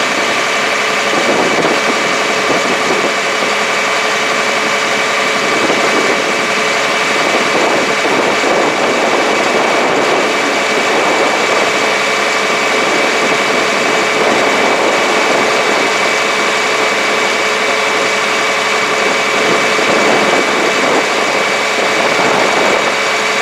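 Diesel engine running steadily at an even speed, with a constant high whine over the engine noise.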